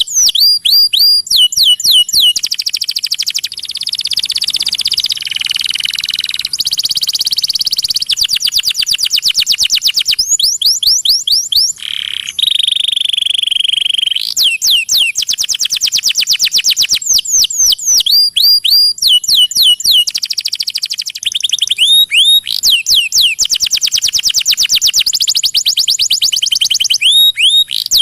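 Caged songbird song used as a masteran (tutor recording): fast trills and rapid runs of repeated notes, broken by series of sweeping chirps and one held whistle about halfway through.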